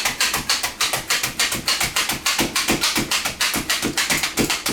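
A hand-held 48-blade meat tenderizer being pumped rapidly into a pork loin, giving an even run of sharp clicking taps, about seven a second.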